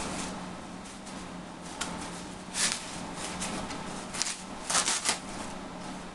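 Packing wrap rustling and crinkling in short bursts as a model airplane kit part is unwrapped by hand, the loudest bursts near the middle and about five seconds in. A faint steady low hum runs underneath.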